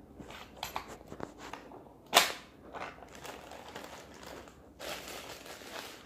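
Handling noise of a phone rubbing against cloth: scattered small clicks and rustling, with one sharp snap about two seconds in.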